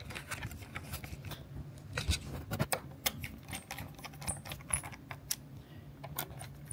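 Precision screwdriver turning screws into a laptop's plastic bottom cover: irregular light clicks and scrapes of the bit in the screw heads, mixed with the laptop being handled on the desk.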